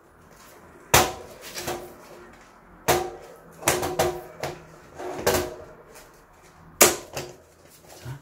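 Bicycle tyre being forced onto its rim by gloved hands. Rubber rubs and scrapes, and there are several sharp snaps as the tyre slips over the rim, the loudest about a second in, at three seconds and near the end. Each snap leaves the wheel ringing briefly.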